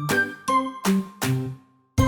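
Cheerful children's background music of bright, chime-like notes, about three notes a second, fading out just before the end.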